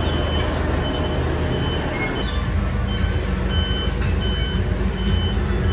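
A large vehicle's engine running with a low rumble that changes pitch about two seconds in, over repeated short, high electronic beeps.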